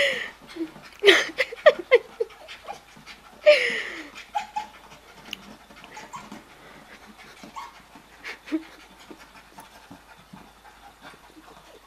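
Corgi panting while it pushes and mouths a rubber exercise ball, with a few short, falling vocal noises about a second in and again at about three and a half seconds, and light taps and scuffs against the ball.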